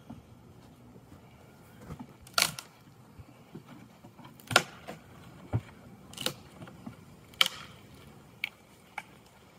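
A series of about seven sharp wooden knocks and clicks, irregularly spaced, as the wooden hive boxes and a small wooden box on the hive are handled and tapped with a hive tool.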